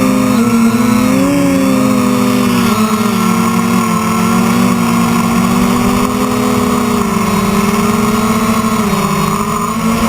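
Radio-controlled quadcopter's motors and propellers buzzing in flight, several close pitches wavering up and down together as the throttle is worked. The pitch sinks a little about nine seconds in.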